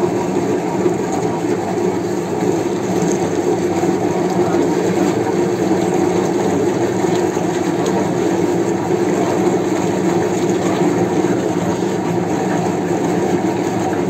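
Old meat mincer running steadily as meat is forced through its cutting plate: a continuous low mechanical grinding hum with no breaks.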